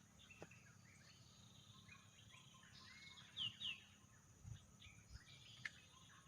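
Faint birdsong of several small birds chirping, with two louder falling whistled notes about three and a half seconds in, over a steady high insect hum.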